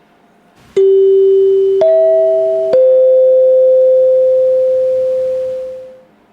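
Three-note chime: a low tone about a second in, a higher one about a second later, then a middle one, each struck sharply and ringing on together, fading out over about three seconds.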